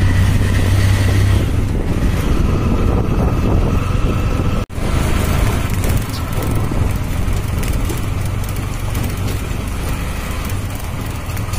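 Small engine of a CNG auto-rickshaw running steadily while it drives, heard from inside the open cab as a low hum with noise over it. The sound cuts out for an instant about halfway through, then carries on.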